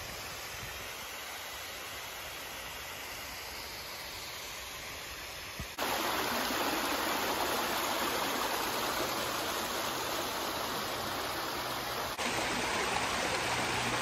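A small waterfall splashing down a rock ledge into a shallow stream, a steady rush of water. About six seconds in it jumps to a closer, louder rush of the stream running over rocks, and a little louder again near the end.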